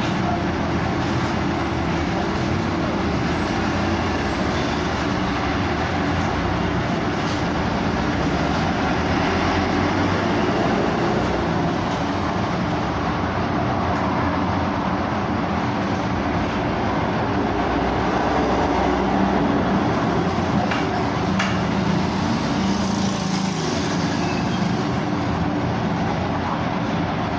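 Steady city street traffic: the running engines of a bus and passing cars, a constant low hum under a wash of road noise.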